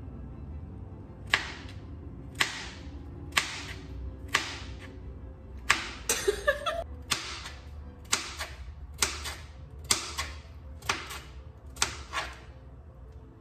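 A flimsy kitchen knife chopping through a zucchini onto a plastic cutting board: about a dozen crisp chops, roughly one a second.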